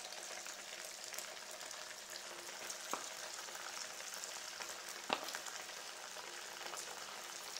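Batter-coated chicken pieces deep-frying in oil over a medium flame, a steady bubbling sizzle. Two sharp clicks sound near the middle, about two seconds apart.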